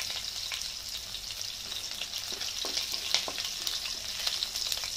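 Green chillies, garlic, mustard and cumin seeds sizzling in hot oil in a kadhai, a steady hiss with scattered crackling pops, while a wooden spatula stirs them. This is a tempering (phodni) frying on high heat.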